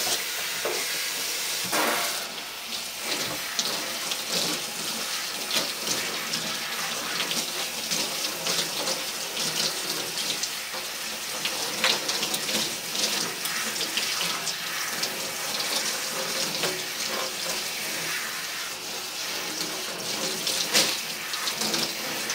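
Water from a kitchen sink's pull-out sprayer running steadily, spattering over hair and into a metal sink as shampoo lather is rinsed out.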